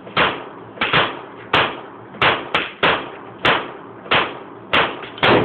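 Gunshots on a shooting range: about eleven sharp cracks in five seconds at an uneven pace, several close together, each followed by a short echo.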